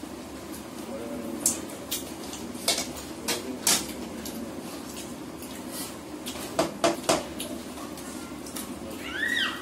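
Eating utensils clinking and tapping against bowls and plates as several people eat: a scattering of sharp clicks, bunched in two spells.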